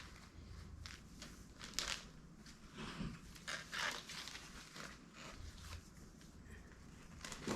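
A plastic bag and fabric rustling and crinkling as they are handled, in several short bursts, the loudest about two and four seconds in and again near the end.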